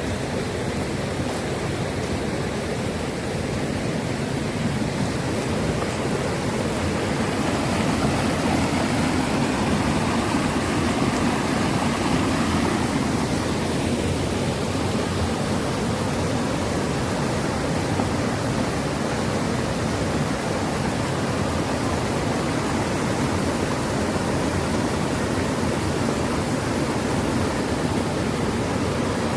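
Mountain stream rushing steadily over rocks, an even wash of water noise that swells slightly partway through.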